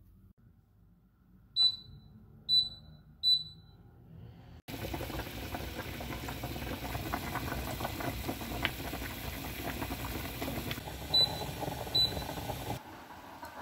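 Induction cooktop touch controls beeping: three short, high beeps a couple of seconds in and two more near the end. Between them a steady rushing noise runs for several seconds.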